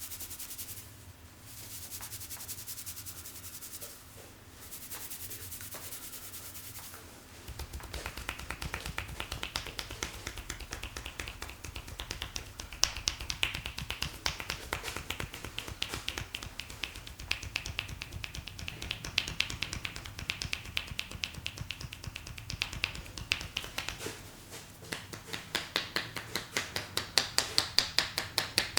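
Palms rubbing briskly over hair and scalp in a head massage. About seven seconds in this gives way to quick, sharp tapping with the hands on the head, and the taps grow louder and more spaced out near the end.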